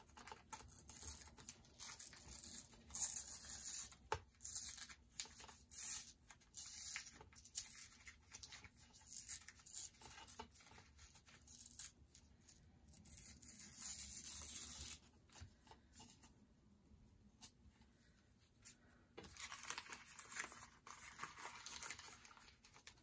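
Paper being torn and peeled away by hand in many short, scratchy rips, strips pulled off a dried, glued-down paper image piece by piece. There is a quieter stretch about two-thirds through, then the tearing resumes.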